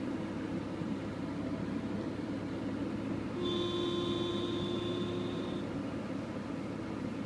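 Porsche Boxster's strange intermittent noise from under the front hood above the right front wheel: over a steady mechanical hum, a steady whine comes in about halfway through and stops after about two seconds. It is one of the bursts that recur at about four-second intervals, and its cause is not known.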